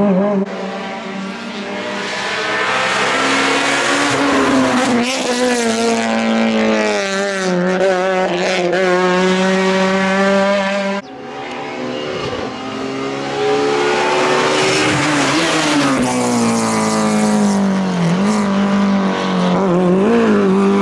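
Rally car engines revving hard, one car and then another: the engine note rises and falls through gear changes as each car slows for the bend and accelerates away. It breaks off suddenly about halfway through, and the second car's engine takes over.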